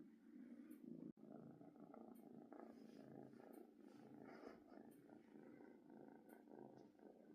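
Domestic cat purring steadily and faintly, with a brief dropout about a second in.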